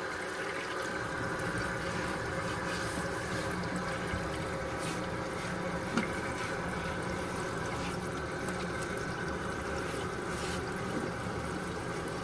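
Water running steadily into a toilet tank as it is rinsed out after scrubbing, with a single light knock about six seconds in.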